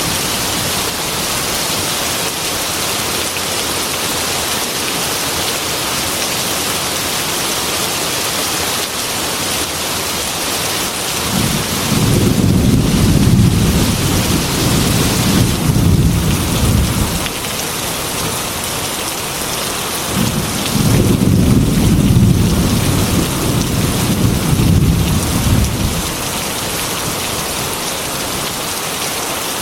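Heavy rain falling steadily on a glass window, with two long rolls of thunder rumbling low, one about twelve seconds in and another about twenty seconds in, each lasting several seconds.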